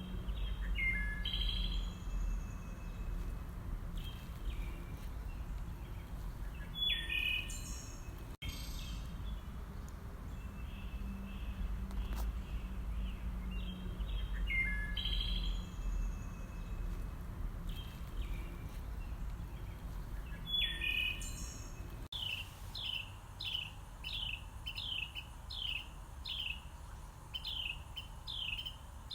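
Songbirds chirping in short, scattered calls over a low rumble. About 22 seconds in, the recording cuts to a single bird repeating the same short falling chirp about twice a second.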